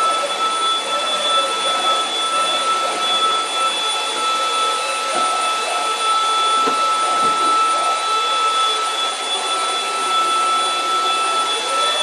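Two cordless stick vacuum cleaners, a Dibea F20 Max and a Prosenic P8 Max, running together while their floor heads are pushed back and forth over carpet: a steady high whine over a rush of air.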